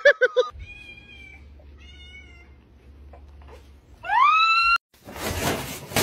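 A cat meowing: two faint short calls, then one loud meow rising in pitch about four seconds in. A harsh, noisy rush follows about a second later.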